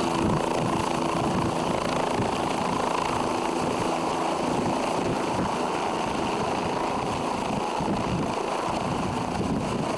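Helicopter rotor and engine running steadily.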